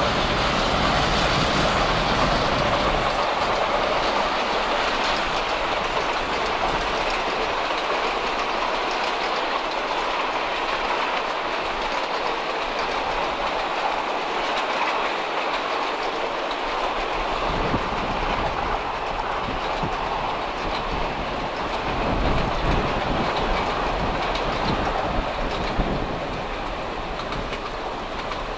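Long passenger train rolling past on the track, its coach wheels clicking rhythmically over the rail joints. The sound grows quieter near the end as the train moves away.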